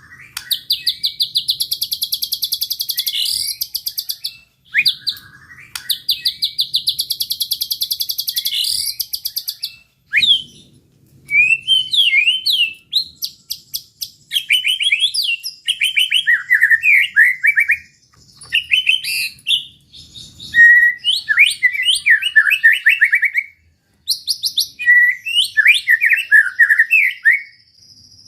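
White-rumped shama (murai batu) singing loudly: two long, rapid-fire trills of fast repeated notes in the first ten seconds, then varied whistled phrases that slide up and down, delivered in bouts with short pauses between them.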